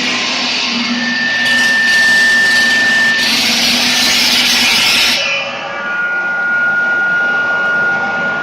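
Liomax 6x600 stone-cutting machine with a diamond blade running, cutting with a loud harsh hiss that cuts off suddenly about five seconds in. The machine then runs on more quietly with a steady high whine.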